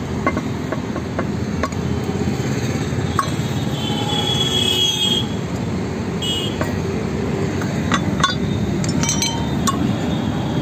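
Steel tools clinking and knocking against a removed car brake drum and hub, in scattered sharp clicks, with a short high metallic squeal about four seconds in.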